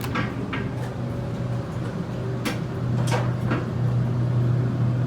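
1973 Dover hydraulic elevator: a steady low hum with several short knocks and clicks, about six in all, scattered through it.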